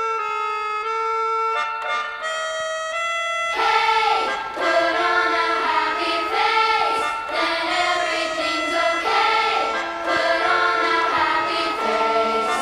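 Music: a few held instrumental notes, then about three and a half seconds in a fuller passage with choir-like singing.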